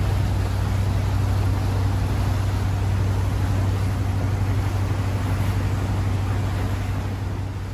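Boat engine running steadily under way, a low steady drone with rushing wind and water over it; it begins to fade out near the end.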